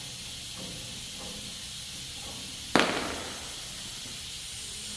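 A single sharp knock about three seconds in as the outer tie rod end, just unthreaded from the inner tie rod, comes off, over a steady hiss.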